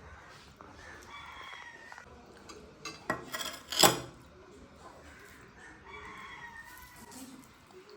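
A rooster crowing twice in the background, about a second in and again about six seconds in. Between the crows, near the middle, comes a short burst of loud, close clicks and clatter.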